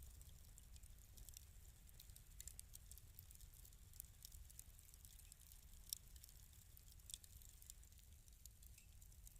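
Wood fire in a fireplace crackling softly: scattered, irregular pops and snaps over a low steady rumble.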